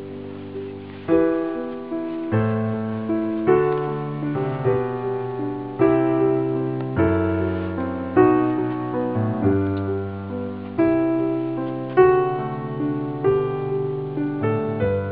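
Background music: a piano playing chords, a new chord struck about every second and ringing out.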